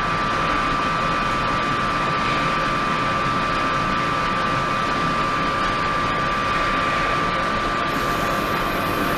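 Ultrasonic tank with liquid circulation running: a steady hiss with a steady high tone through it, unchanging throughout.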